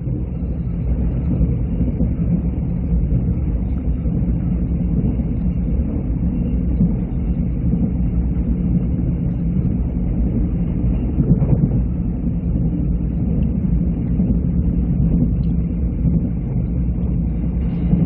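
Mugunghwa passenger train running along the track, heard from inside the carriage as a steady low rumble.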